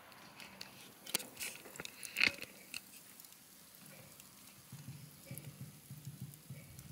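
A few light clicks and knocks as a tomahawk steak is turned over on a charcoal grill's wire grate, the loudest about two seconds in.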